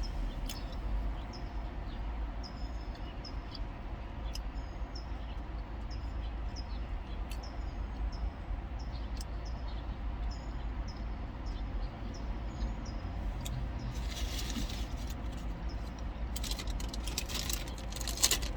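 A small bird chirping repeatedly, short high chirps one or two a second, over a steady low rumble. The chirps stop about 13 seconds in, and brief rustling follows near the end.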